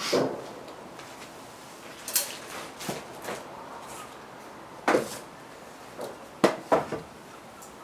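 Irregular knocks and clunks, about six in all, of hard parts being handled and set down, the loudest about five and six and a half seconds in.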